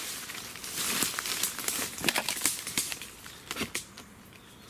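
Footsteps pushing through undergrowth, with leaves rustling and twigs crackling in irregular snaps. It eases off about three seconds in, leaving a few scattered clicks.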